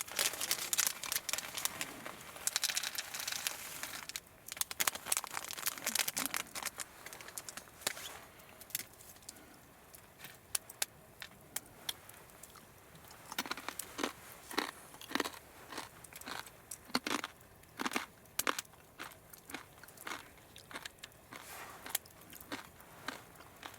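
Crinkling and crunching noises: a dense run of crackles for the first few seconds, then separate sharp crunches every so often.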